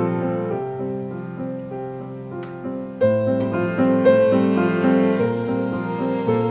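Soft background piano music, held notes and chords changing gently, with a louder new phrase coming in about three seconds in.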